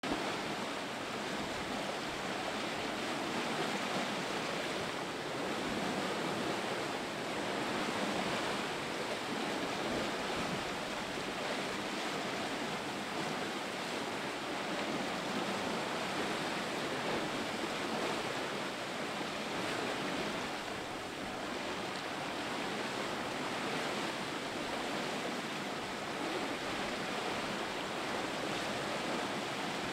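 Sea water rushing and splashing along a sailing yacht's hull under way, with wind: a steady wash of noise that swells and eases a little.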